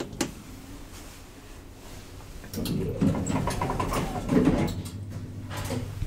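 A clicking elevator call button is pressed, then the 1992 Schindler elevator's sliding doors rattle shut, ending in a thump about four and a half seconds in.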